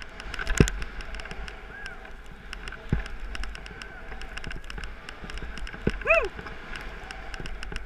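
Skis running through deep powder snow with a steady rush and small clicks, broken by three heavy thumps as the skier drops over bumps. About six seconds in there is a brief rising-and-falling pitched squeal.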